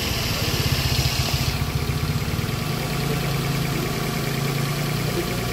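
Daihatsu car engine idling steadily under an open bonnet, running smooth with no odd or rough noises. A high hiss sits over it and stops about one and a half seconds in.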